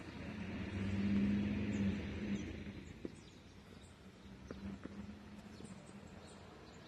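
A motor vehicle passing: a low hum and rushing noise that swell and fade within the first two and a half seconds, followed by a few faint clicks.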